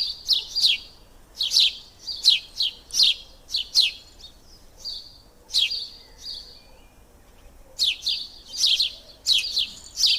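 A songbird chirping: quick high notes that sweep downward, in clusters of two or three a second. The chirps stop for about a second and a half a little past halfway, then start again.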